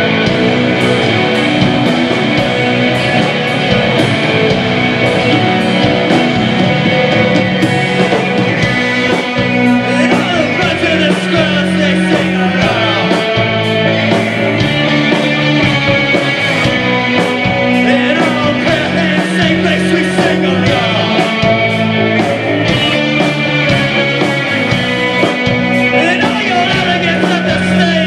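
Postpunk band playing live: two electric guitars, bass guitar and drums driving a steady beat. A sung vocal comes in about ten seconds in.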